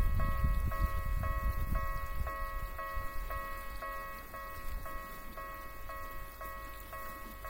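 Railway level crossing warning bell ringing steadily, about two dings a second. A low rumble underneath fades over the first three seconds.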